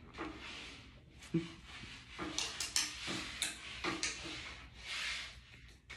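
Pencil writing on a paper worksheet on a desk: a run of short, irregular scratching strokes with a few light taps.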